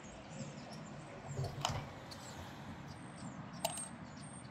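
Small coils of copper wire set down one at a time on a bamboo kitchen scale, giving two light clicks about two seconds apart.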